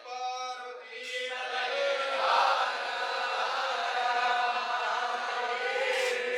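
Young Vedic students chanting a Sanskrit mantra, with long held notes.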